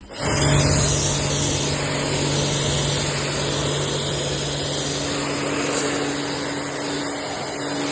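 A machine's electric motor running steadily, a low hum under a loud, even hiss.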